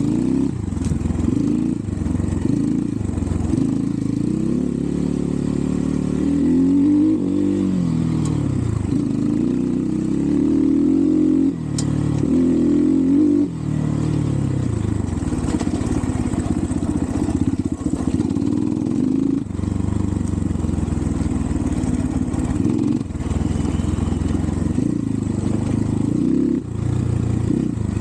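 Xpro Templar X 250cc dirt bike engine running hard under load, its pitch rising and falling again and again as the throttle opens and the engine sags. The bike is bogging on steep climbs, which the rider puts down to carburettor tuning, too lean or too rich. A single sharp knock sounds about midway.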